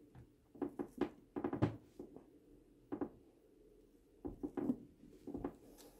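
Threading die cutting 1/2-28 threads on a steel rifle barrel, its die stock turned by hand in short strokes: irregular clicks and scrapes of metal, in a cluster about a second in and again from about four seconds in.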